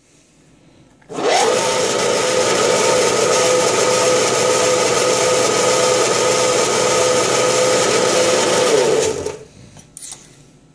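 Prazi SD300 benchtop lathe switched on about a second in: its motor and belt drive spin up and run with a steady whine while turning down an aluminium bar. It is switched off after about eight seconds and winds down.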